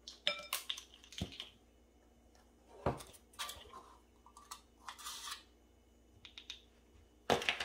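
Measuring spoons on a ring clinking and scraping as baking soda and baking powder are scooped from their box and can and tipped into a bowl: scattered light clicks with a couple of short scrapes.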